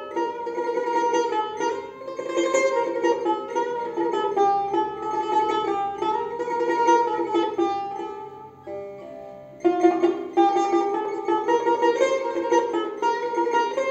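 Persian tar played solo, improvising in the Abu Ata mode: fast, repeated plectrum strokes on its strings. About eight seconds in it thins to a few softer notes left to ring, then a loud stroke takes up the quick playing again.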